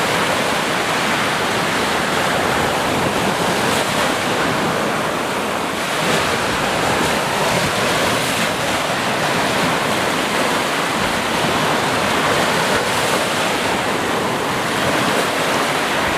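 Sea surf: waves washing in a continuous, steady rush, swelling slightly about six seconds in.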